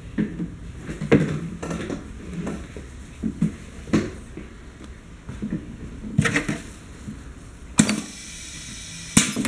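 Scattered knocks and clicks of handling at a piston paste-filling machine, then near the end a sharp click and a steady hiss lasting about a second and a half as the filler fires a dose into a dog-bone mould, ending with another click.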